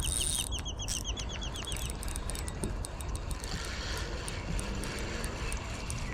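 A bird calling a quick run of about a dozen short, high chirps in the first two seconds, over a steady low rumble.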